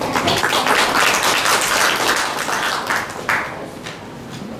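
Audience applauding, the clapping dying away about three seconds in.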